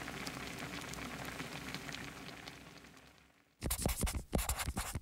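A soft crackling hiss fades out over the first three seconds. Then a pen or marker scratches quickly across paper in short strokes, louder than the hiss, writing out the title.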